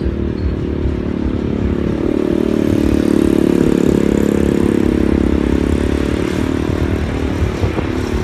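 A car engine running at a steady speed, its even hum growing louder about two seconds in and fading again near the end.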